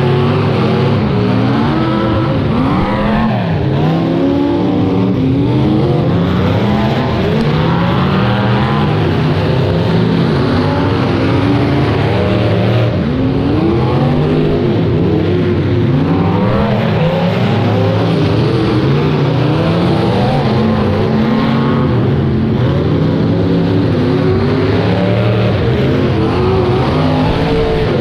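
Several demolition derby cars' engines revving up and down at once, a continuous loud mix of overlapping engine notes rising and falling as the cars accelerate and slow around the arena.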